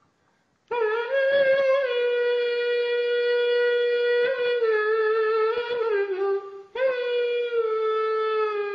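A man imitating a Greek clarinet (klarino) with his mouth, so closely that it sounds like the real instrument. He starts about a second in with long, reedy held notes that step down in pitch, breaks off briefly near the end, then begins a new falling phrase.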